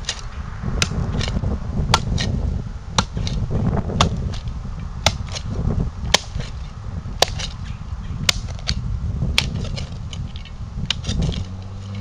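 Sharp clicks at a very even pace of about one a second, each with a fainter click just after, over a steady low rumble.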